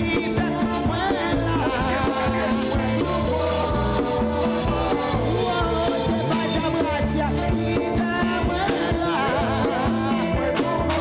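Church worship band playing upbeat music with singing, over a moving bass line and a steady beat.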